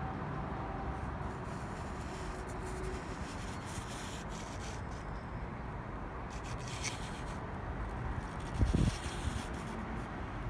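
Rubbing and scraping handling noise from a hand-held recording, over a steady low background rumble, with one heavier thump about eight and a half seconds in.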